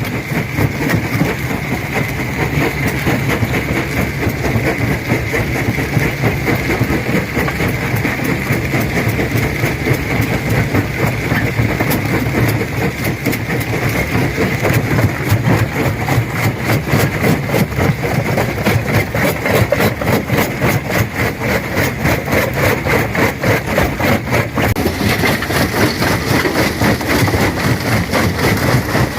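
Stone crusher running, a steady heavy mechanical drone with a dense, rapid clatter of rock being crushed.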